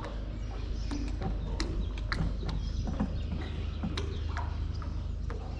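Water lapping and slapping against the side of a small boat in light chop: irregular knocks and short splashes, a few a second, over a steady low rumble.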